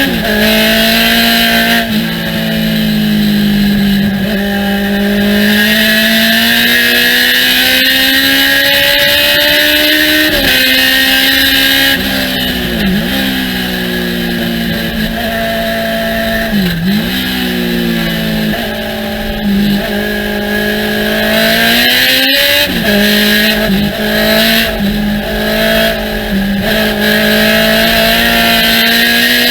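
Thunder Roadster race car engine at full throttle on track. Its pitch climbs steadily through each gear and drops suddenly at the shifts, with short sharp dips in revs as the driver lifts and blips for corners.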